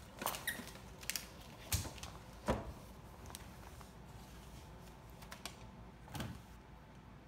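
Beagle puppy ripping and mouthing gift-wrapping paper and tissue paper: intermittent paper rustles and tears with a few sharp ticks, busier in the first half and sparser later.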